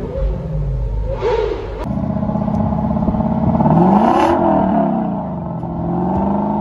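Lexus LC 500's 5.0-litre V8 being revved, first heard from inside the cabin, then from behind at the exhaust. The engine note rises to a peak about four seconds in and falls away, then holds up again near the end.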